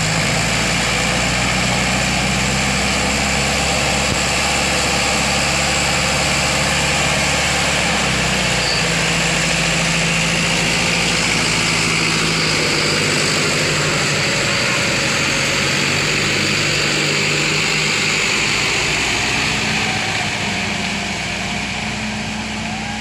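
A farm tractor's engine running steadily under load as it tows a loaded dump truck uphill, with the truck's engine running as well. The engine note shifts about eight seconds in, and the sound eases slightly near the end.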